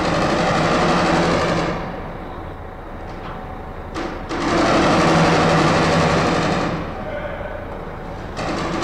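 Ferry docking at its berth: a steady, pitched mechanical groan lasting about two seconds, heard twice with a third starting near the end. The groans come roughly every four and a half seconds and each opens with a short knock.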